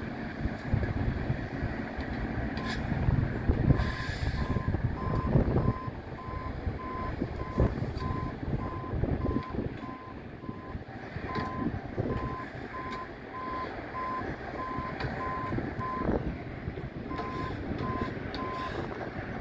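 Backup alarm on track maintenance equipment beeping steadily, about two beeps a second, pausing twice. Under it are low wind rumble and occasional knocks from the work.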